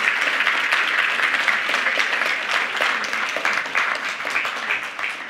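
Audience applauding: dense, steady clapping from a seated crowd that begins to thin out near the end.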